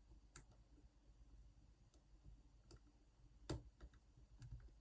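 Faint, sparse clicks of a lock pick working the pins inside an ASSA Twin 6000 lock cylinder, the loudest about three and a half seconds in. The picker is re-setting pins after hearing some drop.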